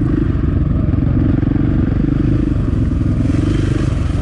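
Dirt bike engine running steadily.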